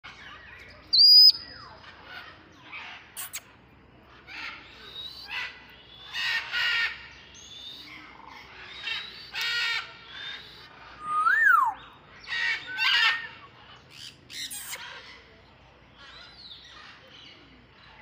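Parrots calling: a run of clear whistles that glide up and down, mixed with short harsh squawks. The loudest is a rising whistle about a second in, and a whistle that climbs and then drops comes in the middle. The calls thin out near the end.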